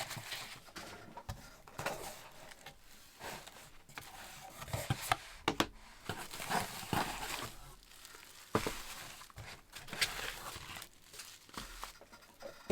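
Shipping packaging handled by hand during an unboxing: irregular crinkling and rustling with scattered light clicks and knocks.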